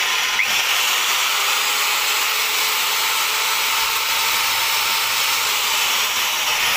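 CM4 electric marble cutter running steadily with no load, motor and gearing whirring on a freshly replaced gear bearing during a test run.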